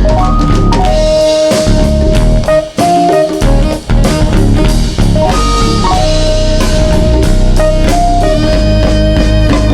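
Live band playing an instrumental break: electric guitar lines over bass and drum kit, with no singing.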